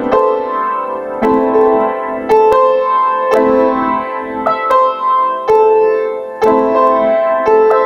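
Solo piano music: slow notes and chords struck about once a second, each ringing out and fading before the next.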